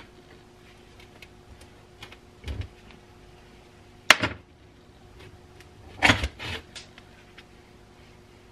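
Metal knocks and clicks as a 1920s Keystone Iron City hand-crank grain grinder is taken apart by hand, its geared shaft and parts knocking against the cast-iron housing. There is a sharp clack about four seconds in and a short cluster of knocks around six seconds.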